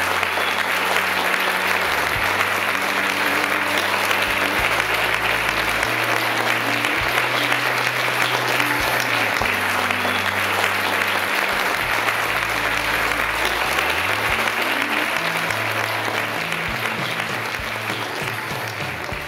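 Wedding guests applauding, many hands clapping at once, over music with long held low notes. The clapping thins out and fades over the last few seconds.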